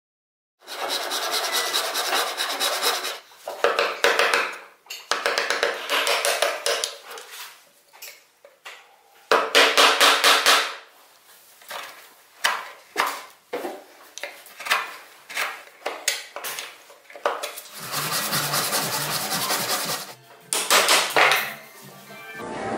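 Hand-tool work on hardwood: a chisel and saw scraping and rasping through the wood in bursts of a second or two, with sharp knocks like mallet taps in between.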